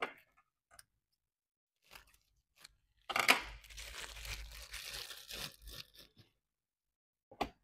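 Packing noise from handling packaging at a desk: a few light clicks, then about three seconds of rustling, tearing noise that starts sharply about three seconds in, and a sharp click near the end.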